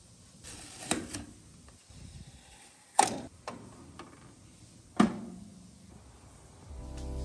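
Balmuda The Toaster being handled during unboxing. There is a soft rustle with small clicks, then two sharp clunks about two seconds apart from the hinged front door and its metal fittings as the door is swung shut. Music fades in near the end.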